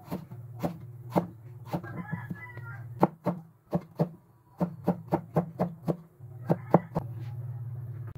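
Chef's knife chopping chayote into thin strips on a thick wooden chopping board: a quick, uneven run of sharp knocks, two or three a second, which stops about seven seconds in.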